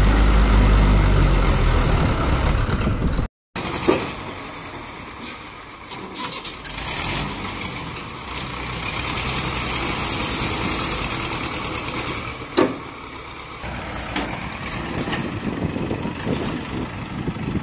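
Mahindra 575 DI tractor's diesel engine running loud and low with its loaded trolley stuck in sand. After a short break it drops to a quieter, steady idle, with one sharp knock about two-thirds of the way in.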